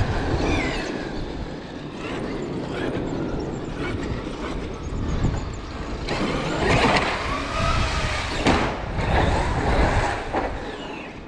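Traxxas X-Maxx electric RC monster truck driving, its brushless motor whining up and down in pitch over tyre noise. There are two sharp knocks in the second half, the loudest part.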